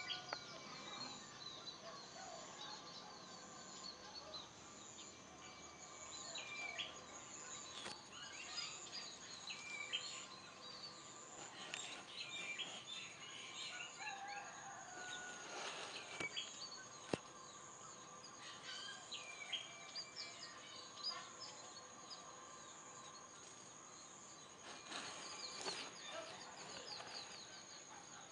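Many birds chirping and calling over a steady, high-pitched insect drone.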